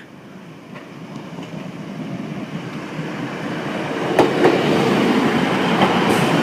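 Class 153 diesel multiple units approaching on the rails, their running noise building steadily louder. About four seconds in, the wheels start clicking over the rail joints.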